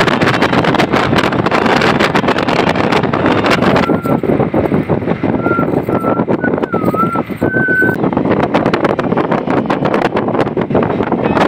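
Wind buffeting the microphone at the open window of a moving Mahindra Scorpio, over the steady road and engine noise of the vehicle at speed. A faint, wavering whistle-like tone comes and goes through the middle.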